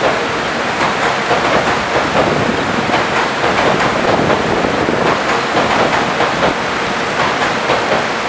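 Steady roar of a waterfall mixed with the running noise of a 185 series electric train going by.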